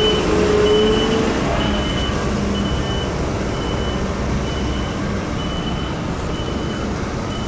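Reversing alarm on heavy paving machinery beeping steadily, about once a second, over the running of diesel engines. A held engine tone dies away in the first couple of seconds.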